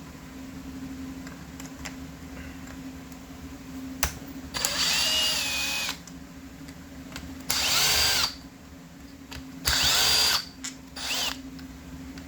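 Electric drill-driver run four times in short bursts, its motor whine rising and falling in pitch as the trigger is squeezed and eased, with a click just before the first run.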